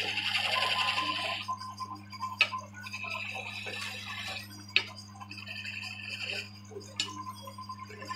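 Woodworking machine at work on wood: a steady motor hum under stretches of tool-on-wood scraping that start and stop, with three sharp clicks spaced about two seconds apart.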